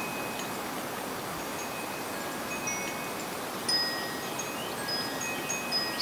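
Wind chime ringing: thin high notes at several fixed pitches sound one at a time, scattered and briefly ringing, over a steady background hiss.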